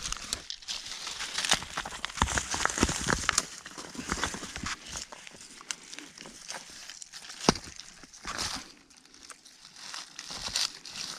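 Loose basalt rocks crunching and clattering in irregular bursts, with one sharp rock-on-rock knock about seven and a half seconds in.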